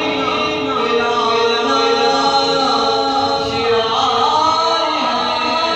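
A man singing a manqabat, an Urdu devotional praise poem, in a solo voice into a microphone, holding long notes and gliding between them.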